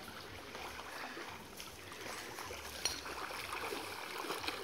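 River water splashing and lapping as a person swims through it, a steady wash of small splashes with one sharper splash about three seconds in.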